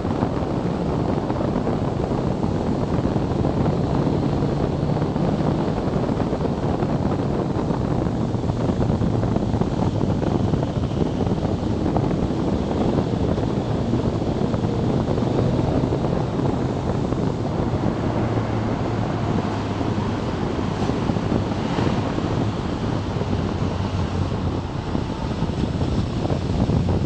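A BMW K1300S inline-four motorcycle engine running under steady wind rush on the action camera's microphone, as the bike rides at road speed and slows.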